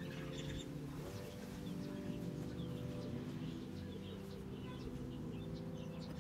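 Soft background music of sustained chords that change every second or so, with small birds chirping faintly.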